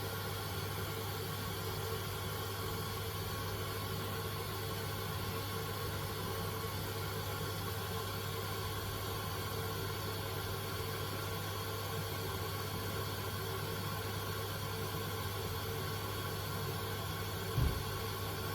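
Samsung washing machine running steadily early in a Baby 60°C cycle, at the start and saturation stage when the laundry is being wetted, a constant hum over a soft hiss. A short low thump comes near the end.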